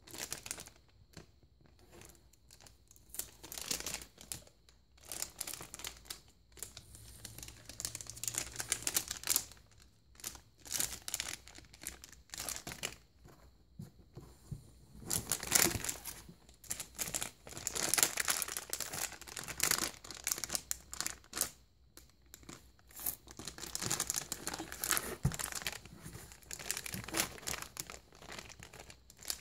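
A crinkly silver foil bag crumpling and crackling as a baby grabs and shakes it, in irregular bursts that come thicker and louder in the second half.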